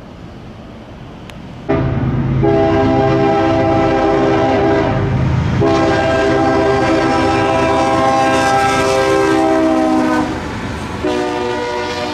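A CSX freight train's diesel locomotive sounds its horn, a chord of several notes, in long blasts for the grade crossing as it approaches: two long blasts and a third starting near the end. Under the horn there is a low engine rumble that comes in suddenly just before the first blast.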